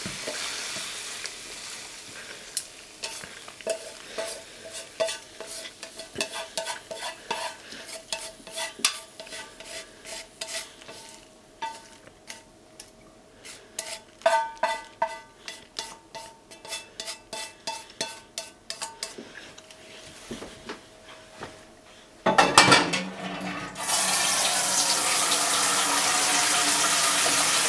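The last sizzle of pork and green onions frying in sesame oil fades in a frying pan, then comes a long run of light clinks and scrapes against the metal pan, each ringing briefly. Near the end a sudden loud splash is followed by water running steadily from a tap.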